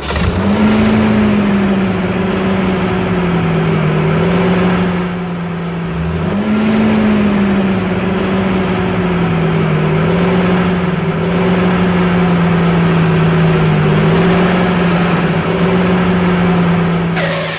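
Tractor engine running steadily with a low hum. Its pitch rises near the start and again about six seconds in, each time sagging back slowly, and the sound cuts off at the end.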